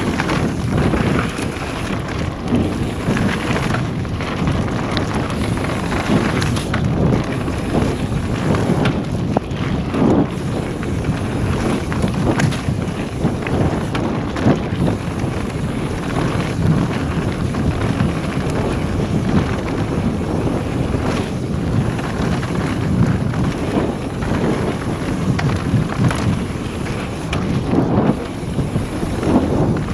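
Mountain bike ridden fast down a dirt singletrack: constant wind buffeting on the camera's microphone over the rumble of knobbly tyres, with frequent short knocks and rattles from the bike over the bumpy trail.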